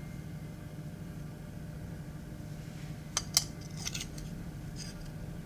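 A few short metallic clicks and taps, about three seconds in and again near four and five seconds, as a puukko's carbon-fibre handle is slid back onto the blade's tang, over a steady low hum.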